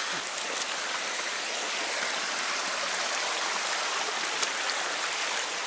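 A shallow, low-running mountain creek flowing over rocks, a steady rushing of water, with a light click of boots on stones about four and a half seconds in.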